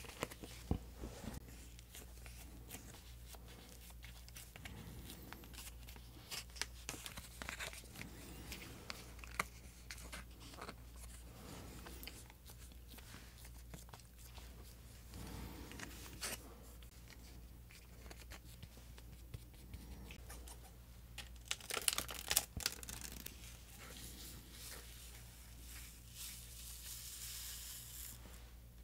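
Small plastic sachets from a Popin' Cookin' hamburger candy kit being handled and torn open: soft crinkling, tearing and scattered small clicks, with a louder burst of crinkling about three-quarters of the way through.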